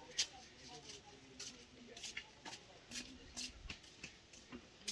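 Metal spoons clicking and scraping against cake layers and dishes as cream is spread on, a series of short light ticks at irregular intervals.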